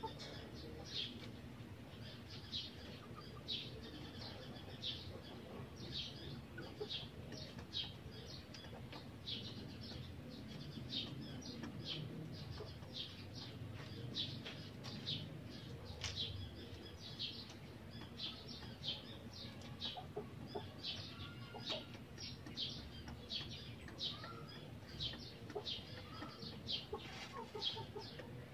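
Faint, rapid chirping of birds, several short high chirps a second, with a chicken clucking now and then.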